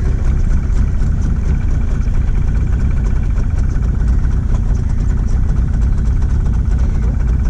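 Boat's outboard motor running steadily, a constant low engine drone.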